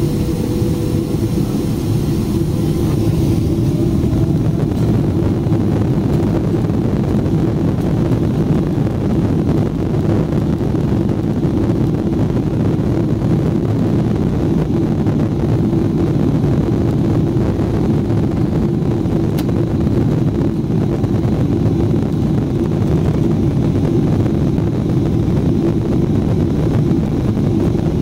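Boeing 777-300ER's GE90 jet engines heard from inside the cabin during the takeoff roll, a steady rumble with a faint rising whine in the first few seconds as the engines spool up.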